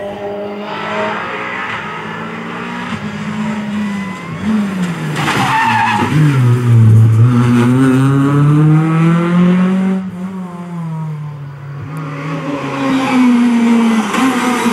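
Rally cars on a tarmac special stage at high revs, the engine note climbing and falling repeatedly through gear changes and lifts off the throttle as they pass.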